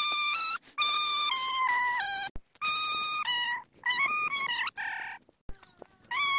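A person singing a tune in a high, nasal voice: a run of held notes that step up and down in pitch, with short breaks between phrases.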